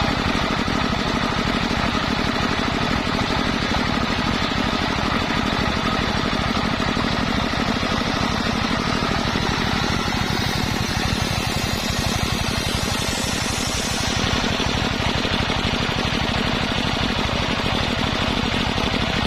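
Engine-driven circular sawmill running steadily, its motor giving a rapid, even pulse throughout, as the saw works through waru logs.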